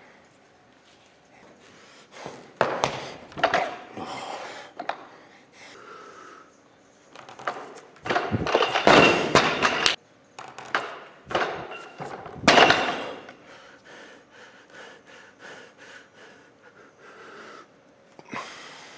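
A weightlifter breathing hard and sniffing in sharp, forceful bursts while gearing up for a maximal lift, with a few dull thuds. The loudest breaths come about eight and twelve seconds in.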